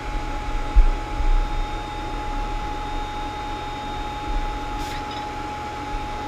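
Creality CR-10S Pro 3D printer running mid-print: a steady fan hum with a few steady whining tones. A couple of low thumps come about a second in.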